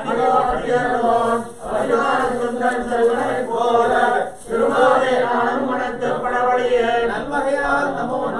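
Priests' voices chanting a ritual hymn in a steady recitation, with short breath pauses between phrases about one and a half and four seconds in.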